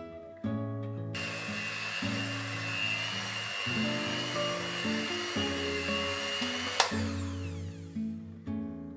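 A small electric kitchen appliance's motor runs with a steady high whine from about a second in, then cuts off suddenly with a click near seven seconds, over gentle acoustic guitar background music.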